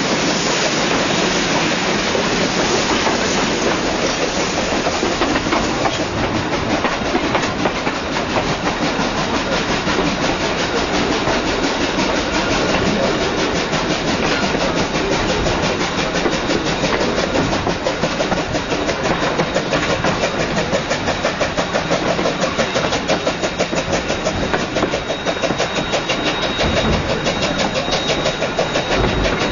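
Queensland Rail BB18¼ class 4-6-2 steam locomotive hauling a train up a steep grade, heard from a carriage window behind it: a loud, steady rush of train noise, with a fast, even beat from about six seconds in.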